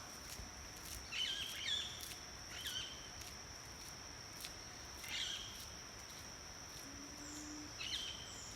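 Short bird calls repeated every second or two over a steady, high-pitched insect drone.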